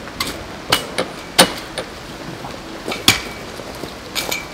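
Metal tent poles knocking and clinking as they are handled and fitted while the annex tent is pitched: a string of sharp, irregular knocks, some ringing briefly.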